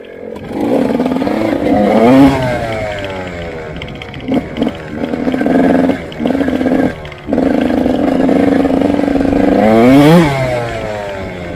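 Motorcycle engine heard on board, revving up hard twice, about two seconds in and near the end, with the pitch climbing and then falling away each time. In between it runs at a steadier note, broken by a few short throttle blips and brief drops in power.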